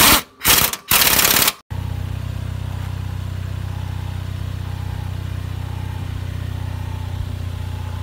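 A power wrench tightening the new front control arm bolt on a Ford Mustang in three short, loud bursts. About two seconds in it gives way to the car's engine idling steadily.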